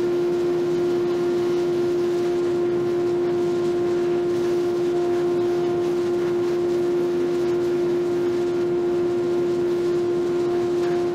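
Electric router motor running steadily at speed: a steady high hum over an even rushing noise.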